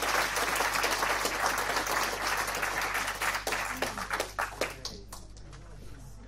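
Applause, a dense patter of many hands clapping, that thins out and fades away about four to five seconds in, leaving a few scattered claps.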